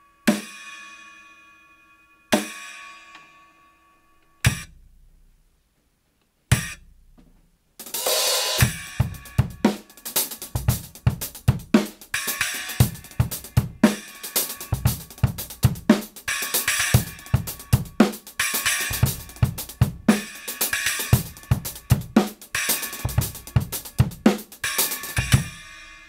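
Kingdo Artist Classic 6-inch splash cymbal struck on its own four times, about two seconds apart, each hit ringing out briefly. About eight seconds in, a drum kit groove starts with kick, snare and hi-hat, and the splash is played over it. A last cymbal hit rings out near the end.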